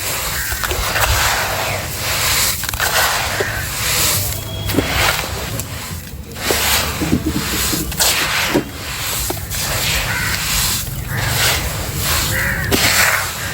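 Wet sand-and-cement mixture being worked by hand, with repeated swishing and sloshing strokes about a second apart.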